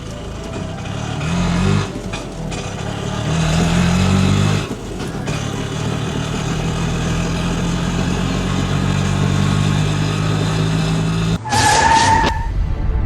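Motor vehicle engine revving up twice, then running steadily for several seconds, followed by a short horn honk near the end.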